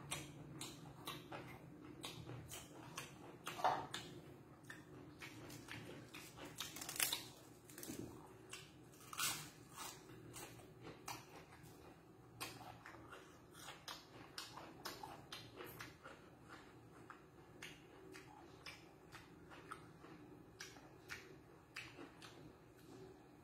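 Close-up mouth sounds of a man chewing a mouthful of koi nuea, spicy raw-beef salad, with fresh herbs: a steady, irregular run of wet clicks and smacks, a few louder than the rest.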